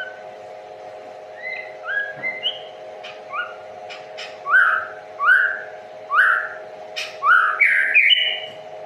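A songbird singing a run of short, clear whistled notes, some rising and some falling, from about a second and a half in until near the end, over a steady hum.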